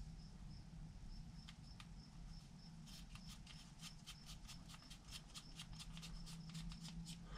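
Faint, quick light clicking, about six clicks a second, starting about three seconds in and running until near the end, from hand work on the small parts of an RC crawler's wheel and track hardware. A faint high pulsing tone is heard before the clicking starts.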